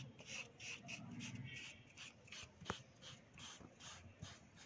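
Cotton wool rubbed back and forth over oil pastel on paper: a faint, soft scrubbing of about three strokes a second, with one sharp click near the middle.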